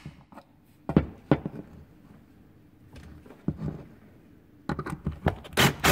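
Sharp metallic clicks and knocks of steel locking pliers and a plastic RC part against a wooden workbench as a heated, Loctited steering post is unscrewed, with a louder clatter near the end.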